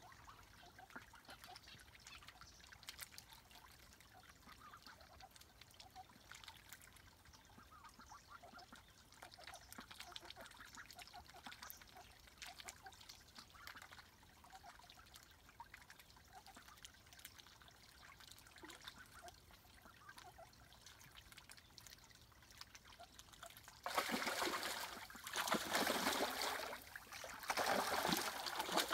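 Young Swedish yellow ducks paddling and dabbling in a pond, faint small water sounds and ticks. About 24 seconds in, loud splashing starts in several bursts as a duck bathes, beating and churning the water.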